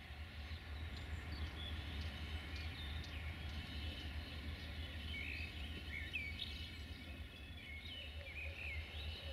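Small birds chirping and singing in short repeated phrases over a steady low rumble.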